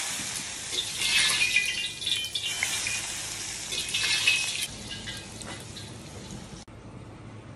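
Hot oil poured over minced garlic and chili powder, sizzling and crackling as it hits them: the hot-oil finish of a Sichuan water-boiled dish. Loudest for the first four to five seconds, then dying away.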